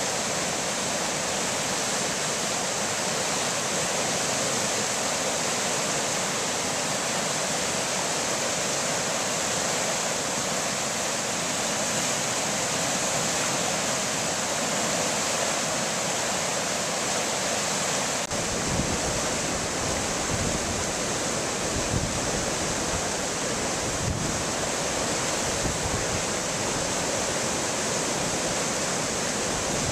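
Rain-swollen river rushing over rapids in flood: a loud, steady roar of churning white water. About two-thirds of the way in, a low, uneven buffeting on the microphone joins it.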